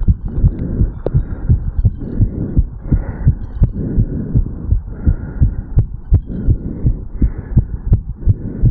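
Human heartbeat heard over the mitral valve area, beating fast and regularly after a walk and sprint: a rapid train of deep thumps with a rushing noise underneath.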